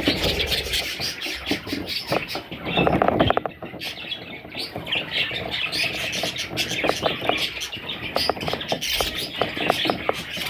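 A group of budgerigars chirping and chattering without pause, with a louder burst of calls about three seconds in. A low hum underneath stops at about the same moment.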